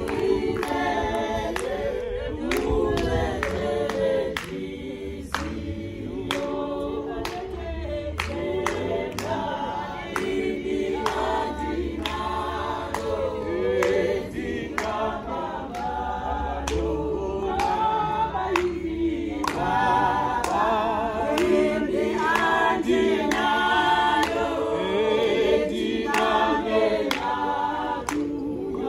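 A group of mostly women's voices singing a song together without instruments, with sharp hand claps keeping a steady beat about once a second.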